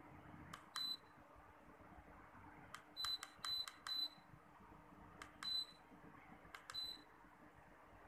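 Remote-control buttons clicking, most presses answered by a short, high beep from the York split air conditioner's indoor unit as it accepts each command. Six beeps in all: one about a second in, three in quick succession around three to four seconds, then two more spaced out.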